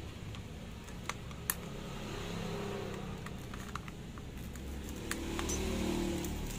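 Scattered light clicks and rubbing of hands handling and prying at a gaming mouse's plastic shell, over a steady low hum.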